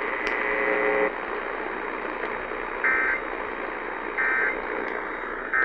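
Emergency Alert System end-of-message signal over AM radio static: three short, buzzy digital data bursts about a second and a half apart, marking the end of the warning. A steady tone sounds for about the first second.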